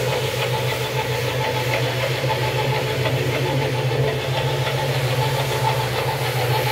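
Rotary single-disc floor scrubber running, its motor giving a steady hum as the spinning brush scrubs a soaked, soapy rug.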